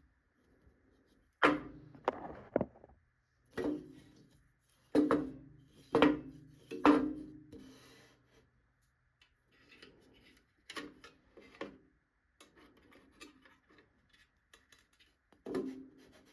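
Wooden pieces knocked and set down on a workbench: about ten sharp knocks with a short ringing, irregularly spaced, loudest in the first seven seconds, then softer taps.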